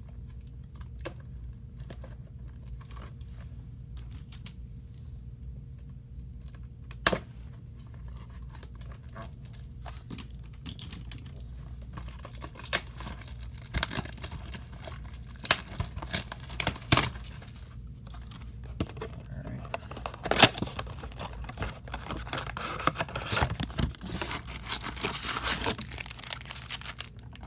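A trading-card blaster box and its packs being torn open by hand: scattered sharp snaps of cardboard and wrapper, and thick crinkling and tearing over the last few seconds. A steady low hum runs underneath.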